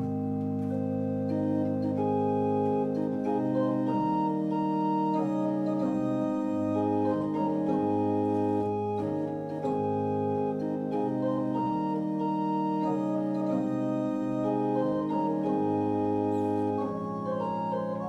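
Small Flentrop pipe organ playing a slow piece in held chords over low bass notes, the chords changing every second or two.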